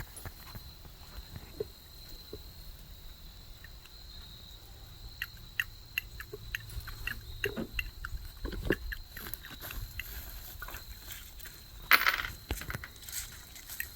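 Quiet outdoor background with scattered small clicks and ticks, and one brief louder burst of noise about twelve seconds in.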